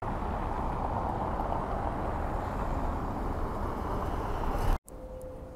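Outdoor city ambience: a steady rush of traffic-like noise with a low rumble underneath. It cuts off abruptly near the end, and a quieter stretch with a steady hum follows.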